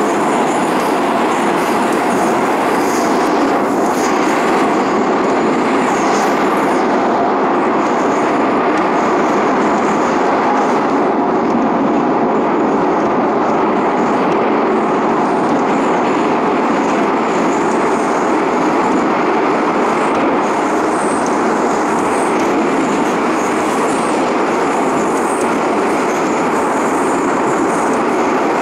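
Moscow Metro train running at speed on the Circle Line: a steady, loud, unbroken noise of wheels on rails and running gear, with no stops or announcements.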